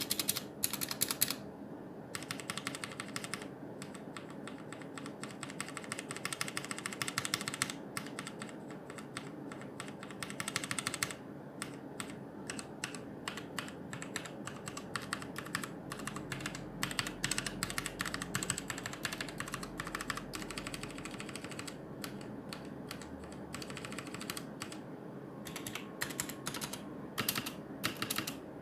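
Typing on a HyperX Alloy FPS RGB mechanical keyboard with Kailh Silver Speed switches: keystrokes in quick runs, with short pauses between bursts.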